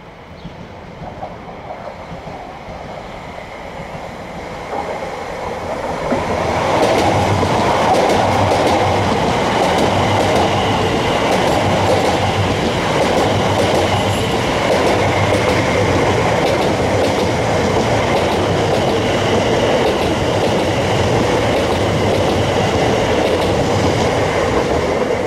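Train approaching and passing close by, its noise swelling over about six seconds into a loud, steady run of rail and wheel noise with a repeating low rumble, easing slightly near the end.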